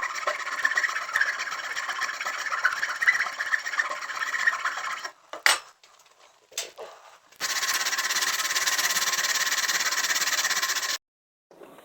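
Wood lathe running with a tool cutting a pine leg, heard as two stretches of steady scraping machine noise that each cut off abruptly, with a sharp click between them.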